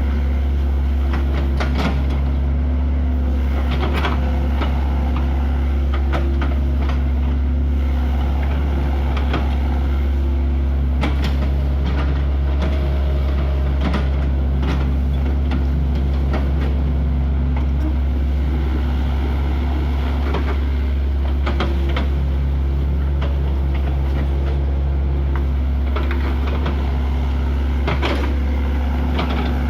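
Excavator's diesel engine running steadily with a deep drone, with frequent short clanks and knocks from the machine's work.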